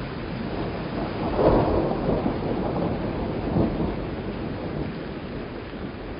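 Rolling thunder: a low rumble that swells to its loudest about a second and a half in, rises again briefly around three and a half seconds, then rolls off into a steady low rumble.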